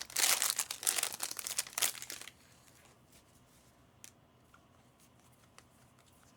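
Foil wrapper of a Panini Prizm football hobby pack being torn open and crinkled for about two seconds, then a few faint ticks.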